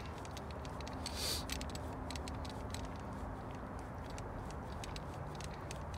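Hand-lever grease gun being pumped, forcing grease through its hose into a bearing packer to pack a trailer wheel bearing. It makes faint, irregular clicks, with a brief hiss about a second in.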